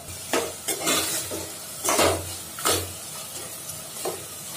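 A metal ladle stirring chicken pieces frying in a metal pot, scraping against the pot about six times, loudest about two seconds in, over a low sizzle.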